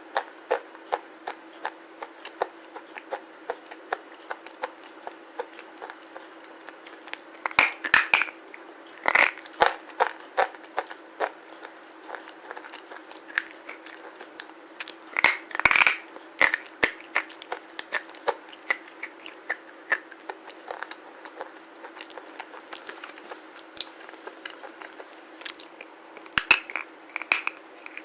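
A person biting and chewing pieces of black slate close to the microphone: sharp, crisp crunches in quick runs, with several louder clusters of bites spread through, over a faint steady hum.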